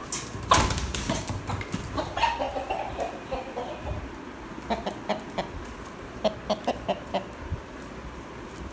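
Rooster squawking and clucking as it is grabbed and picked up, with a loud scuffle of handling about half a second in. A drawn-out wavering squawk comes around two seconds in, then a quick run of about six short clucks.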